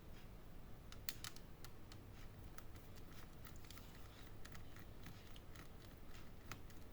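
Faint, irregular small clicks and taps of laptop parts and screws being handled during disassembly, over a low steady hum.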